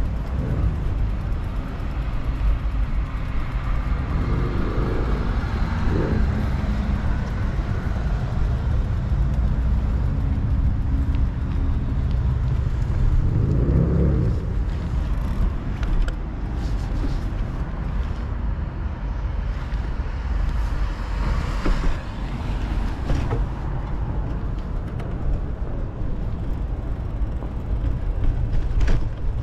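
Street traffic with cars passing by, each swelling and fading, over a steady low rumble.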